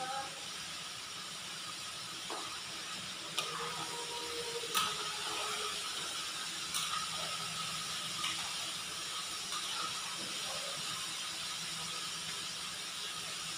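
Chicken pieces frying in a large pan of hot oil, a steady sizzling hiss, with a metal spatula clinking and scraping against the pan a few times.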